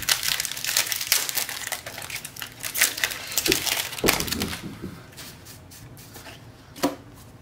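Foil wrapper of a Magic: The Gathering booster pack torn open and crinkled, a dense crackling for about four seconds, then quieter rustling.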